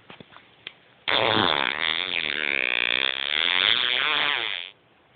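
A man's long, loud fart lasting about three and a half seconds. It starts about a second in, wavers up and down in pitch, and cuts off abruptly.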